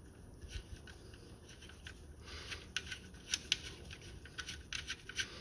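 Faint, irregular small metallic clicks and scrapes of a sharpened pin, a bolt screwed into a tapped 10 mm hole, being unscrewed by hand from painted sheet metal. The clicks come thicker in the second half.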